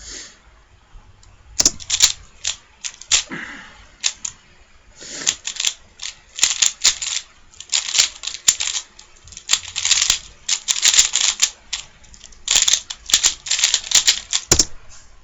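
Rubik's cube being speed-solved: rapid bursts of plastic clicking and clacking as the layers are turned, with short pauses between runs of moves. A single thump near the end.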